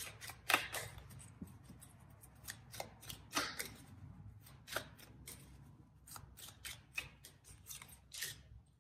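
Tarot cards being handled on the table: a string of irregular, light clicks and snaps, a few a second, some louder than others.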